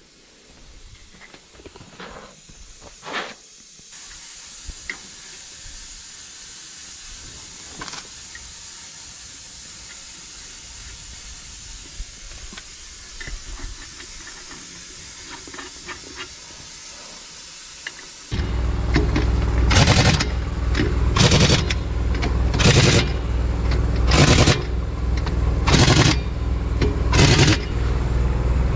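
Pneumatic impact wrench firing six short bursts about a second and a half apart as it runs the wheel nuts onto a slurry tanker's new wheel, with an engine running steadily underneath. Before that there is a long quieter stretch of faint hiss and a few light metallic clicks as the nuts are put on the studs by hand.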